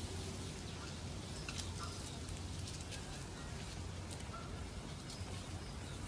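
Outdoor park ambience: a steady low background hum with scattered short, faint bird chirps.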